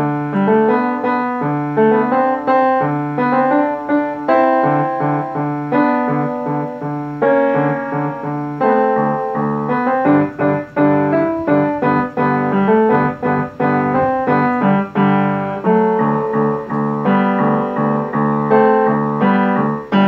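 Upright piano being played: a steady, rhythmic melody over repeated low bass notes and chords, the notes struck one after another without a break.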